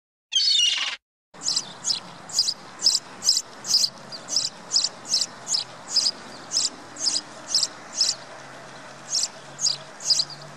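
A black-headed gull gives one short harsh call. Then, from about a second and a half in, a house sparrow chirps over and over, about two or three chirps a second, with a brief pause near the end before three more chirps.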